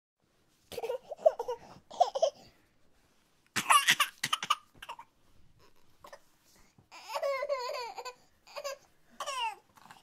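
Babies crying in short separate bursts: choppy sobs about a second in, then high wails, one wavering and others falling in pitch near the end.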